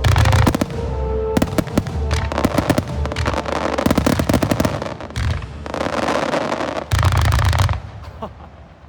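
Aerial firework shells bursting with low booms and dense crackling. The crackle dies away about eight seconds in.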